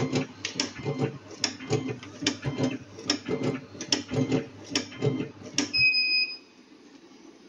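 Automatic hot-knife rope cutting machine running, feeding and chopping plastic PE rope with a rapid clacking of about two to three strokes a second over a low hum. About six seconds in it stops and gives a short, high electronic beep.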